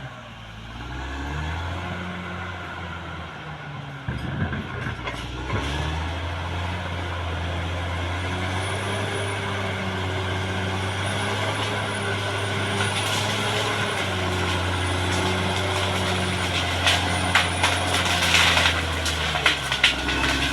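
CAT D6R XL crawler bulldozer's diesel engine running steadily under load while cutting earth. Its note dips briefly about half a second in, and several sharp knocks come near the end.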